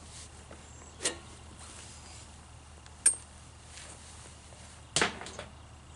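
Three sharp clicks and taps of hand tools and small parts being handled, the middle one with a brief metallic ring, over a faint steady hum.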